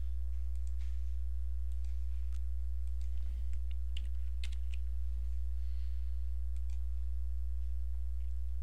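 Computer keyboard keys and mouse clicks while a value is entered in a software dialog: a scatter of light clicks, thickest about four seconds in, over a steady low hum.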